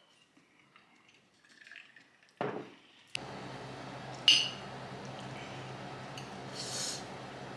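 Metal chopsticks clinking and scraping against a ceramic plate of noodles, with one sharp clink about four seconds in the loudest sound. The first few seconds are nearly quiet; a steady low room hum comes in about three seconds in.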